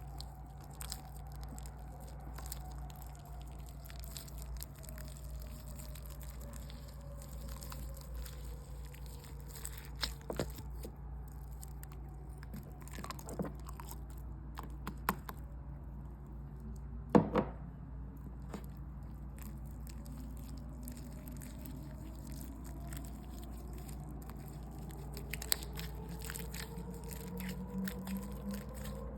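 Hands working a watery slime: scattered sticky clicks and squishes, the loudest a little past halfway through, over a faint steady hum.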